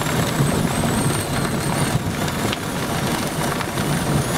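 Hurricane eyewall wind blowing hard and steadily, a heavy low rumble of gusts buffeting the truck and the microphone.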